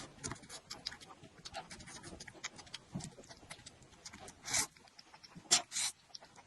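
Close-miked eating sounds: a steady run of small wet clicks and smacks of chewing, with a few louder slurps about four and a half and five and a half seconds in.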